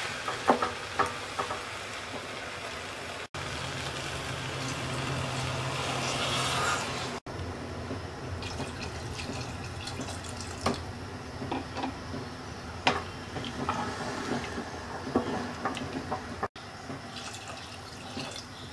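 A stream of water pours into an aluminium pressure cooker holding vegetables, rice and lentils, splashing into the frothy liquid. The rushing sound rises in pitch as the pot fills and breaks off at a few cuts. A spatula scrapes and stirs in the pot in the first few seconds.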